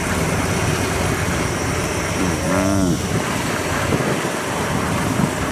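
Kubota DC93 combine harvester's diesel engine running steadily. A man's voice calls out briefly about halfway through.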